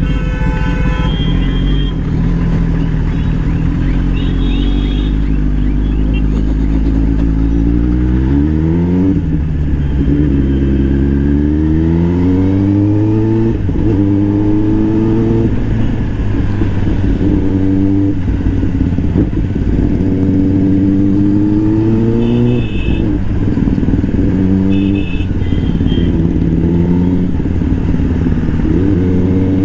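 Kawasaki ZX-10R's inline-four engine, running steadily at first and then, about a third of the way in, accelerating hard through the gears. The note climbs and drops back sharply at each quick-shifted upshift, roughly every two seconds.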